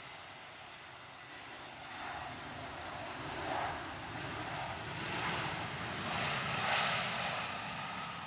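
Jet engines of an Airbus A319 on its landing rollout, a broad rush that grows louder over several seconds and swells and eases a few times.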